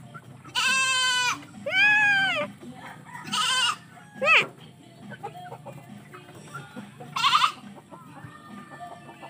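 Goat bleating several times in short, loud calls, the first with a quavering tremble.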